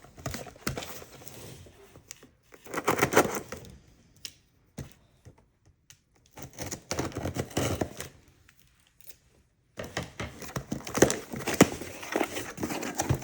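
Mystery box of jewelry being opened and handled: crinkling, tearing packaging and small clicks and jangles, in bursts separated by short pauses.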